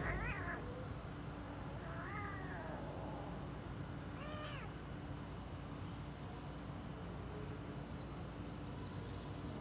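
Kittens meowing: three short rising-and-falling meows in the first half, over a steady low hum. Bouts of rapid high-pitched chirps come in the middle and again near the end.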